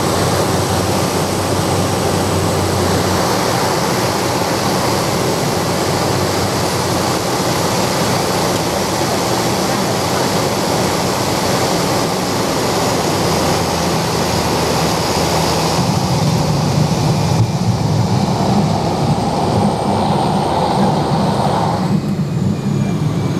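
Piston engine and rushing air heard from inside the cabin of a single-engine light aircraft landing on a dirt airstrip. About two-thirds of the way through, a lower rumble comes up as the wheels run over the rough strip, and near the end the hiss and engine note drop away sharply as power comes off during the rollout.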